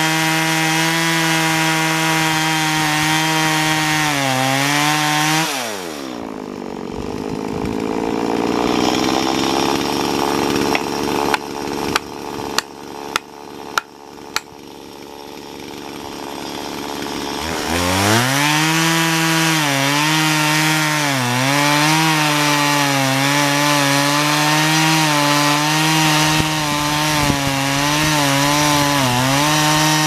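Two-stroke chainsaw running at full throttle as it cuts into the trunk of a standing dead tree, then falling to idle about five seconds in. While it idles there is a quick run of about seven sharp knocks. It revs back up after about eighteen seconds and carries on cutting, its pitch dipping repeatedly as the chain bogs in the wood.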